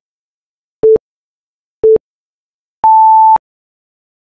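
Countdown timer sound effect beeping once a second: two short, lower beeps, then a longer, higher beep that marks zero, the end of the countdown.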